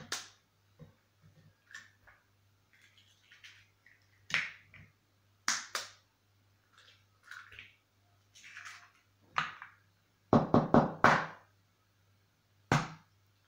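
A string of short knocks and taps against a plastic mixing bowl, spaced several seconds apart, with a quick cluster about ten seconds in: eggs being cracked on the bowl's rim and emptied into it. A faint steady hum runs underneath.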